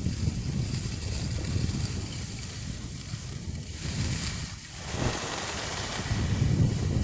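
Wind buffeting the camera's microphone as a skier slides downhill, a low rumble with the hiss of skis on groomed snow above it. It eases briefly about four and a half seconds in.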